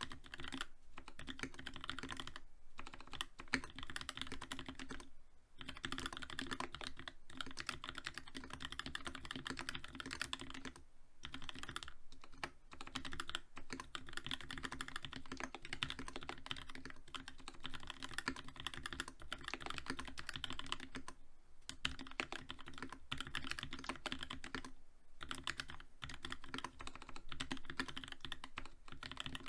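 TX87 custom mechanical keyboard with a brass plate, lubed Gateron FEI linear switches with Cherry Black tops, GMK ASCII keycaps and no sound dampening, typed on in fast continuous runs of keystrokes, broken by a few short pauses.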